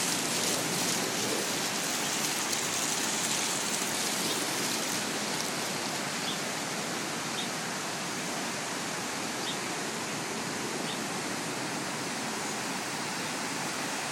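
Fountain water splashing and pouring as a steady rushing hiss: bubbler jets falling back into a pool and water spilling down terraced cascade steps. A few faint short high chirps come in the middle.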